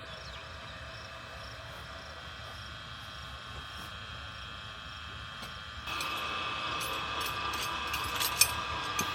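Metal clicks and taps of tools working the end plug off a center pivot sprinkler pipe, starting about two-thirds of the way in and growing sharper toward the end. Under them runs a steady high hum with a few fixed tones that grows louder about six seconds in.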